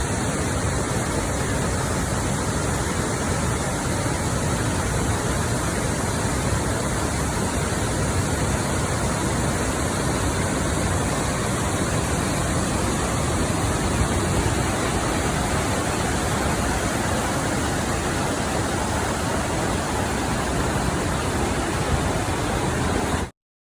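Waterfall: a steady rush of falling water that stops suddenly near the end.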